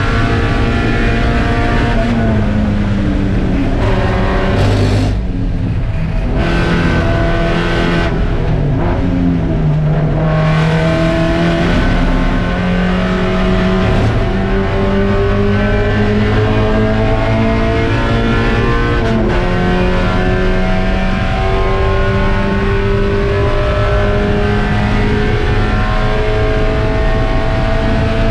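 Spec Miata race car's four-cylinder engine running hard at racing pace. Its pitch falls and the upper part of the sound drops away for a few seconds as the car comes off the throttle, then it climbs again in long pulls with a few gear changes.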